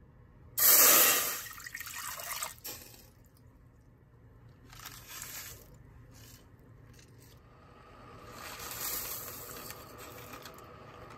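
Liquid poured into a stainless steel saucepan, loudest as a short splash about half a second in. Softer pouring follows: seasoning shaken in around five seconds, then dry rice grains poured into the liquid with a rising hiss near the end.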